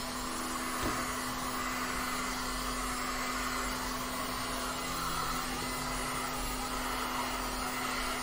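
Electric heat gun running steadily, blowing hot air across wet epoxy resin to draw out the white lacing of the waves: a constant rush of air with a low hum underneath.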